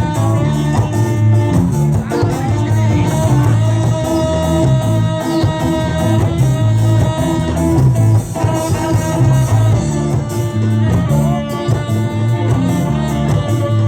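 A live ska band playing, with guitar and drum kit over a steady, driving bass rhythm, in a rough recording.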